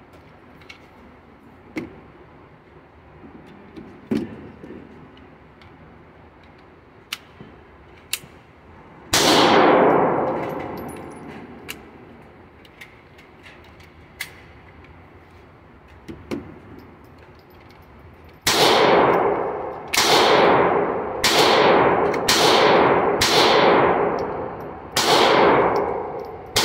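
GSG 1911 .22LR semi-automatic pistol being fired: a single shot, then after a pause a string of seven shots about a second apart, each with a ringing tail. Faint clicks of gun handling come in between.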